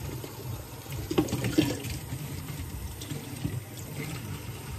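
Water running from a tap, with two sharp knocks about a second in.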